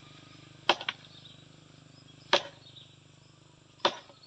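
Blows struck at the felling cut of a partly sawn tree trunk: three sharp knocks about a second and a half apart, the first followed at once by a second, lighter knock.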